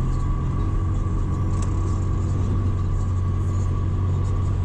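Steady low rumble of a car driving, road and engine noise with a thin steady whine above it, heard from inside the moving car.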